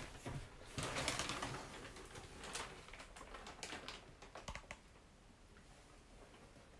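Faint, scattered clicks and light knocks of someone moving about a small room, thinning out and fading to near silence over the last couple of seconds.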